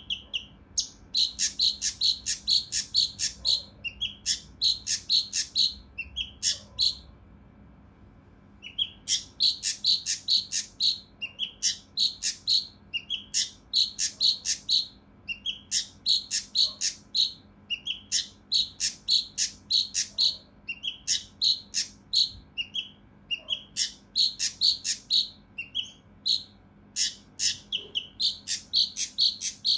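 A kinoi (cucak rante mas bulbul) calling in rapid phrases of short, harsh, closely spaced high notes, several a second, repeated over and over with one break of about two seconds near a quarter of the way in.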